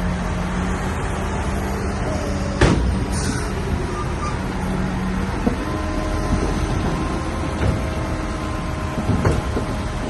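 Crawler bulldozer's diesel engine running steadily, its note shifting about five and a half seconds in, with a sharp metallic clank about two and a half seconds in and a few lighter knocks later.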